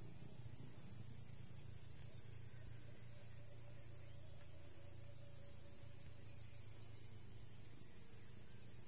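Steady high-pitched chorus of insects (crickets or cicadas), with a few short chirps in it about four and six seconds in, over a low steady rumble.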